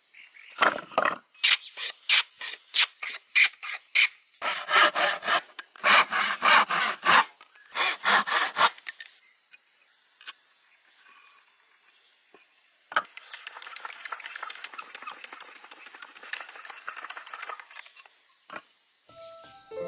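Hand tool strokes on wood: quick short strokes, two to three a second, for about four seconds, then longer, louder back-and-forth strokes like hand sawing. After a few seconds' pause comes a steadier, fainter scraping on wood lasting about five seconds.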